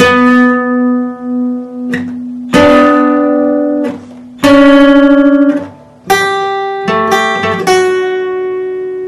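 Steel-string acoustic guitar picked note by note: a note shaken with vibrato, then single notes and a chord let ring every second or two, another note with vibrato, a quick run of alternating notes about six seconds in, and a last high note left ringing out.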